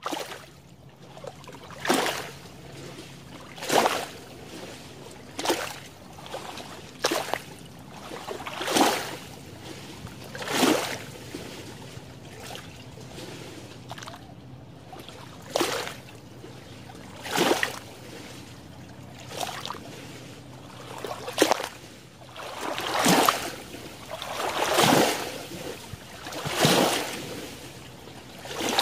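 Small lake waves slapping and splashing against the shallows among water plants, a splash about every two seconds over a steady wash of lapping water.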